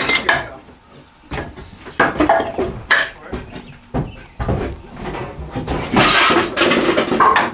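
A few sharp knocks and clattering, with indistinct voices in between.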